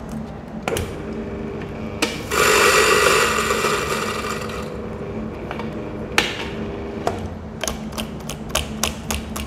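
Electric coffee grinder grinding whole beans on a coarse setting for about two and a half seconds, then a run of sharp taps and knocks.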